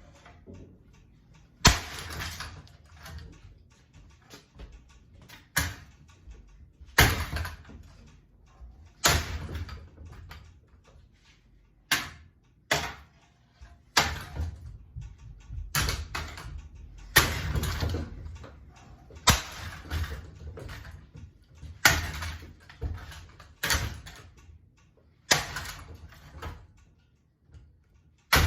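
A ceiling fan being smashed: about a dozen hard blows, one every couple of seconds, each followed by a short rattling clatter.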